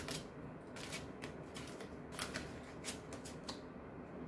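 A deck of oracle cards being shuffled by hand: irregular soft flicks and slaps of the cards against each other, stopping near the end.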